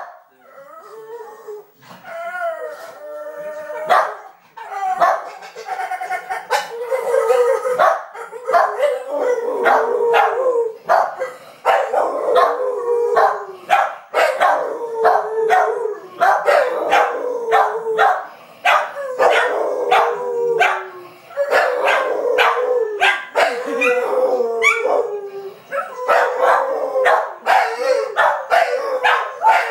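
Beagle-type hound howling and baying. A wavering howl comes first, then a long run of short baying yelps mixed with drawn-out howls, about one a second, each dropping in pitch at its tail.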